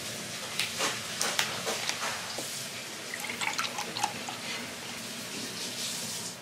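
A plastic bottle's screw cap twisted open with a few sharp clicks, then a thick yellow drink poured from the bottle into a glass, which fills steadily until the pouring stops near the end.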